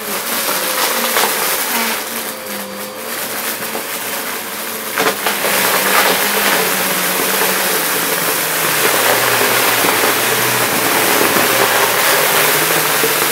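Upright vacuum cleaner running with a steady motor hum and air rush. From about five seconds in, a dense crackling rattle joins it as the vacuum sucks up a heap of beads, sequins and glitter.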